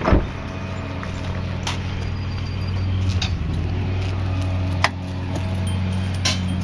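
A steady low motor hum, with several sharp knocks over it, the loudest just at the start.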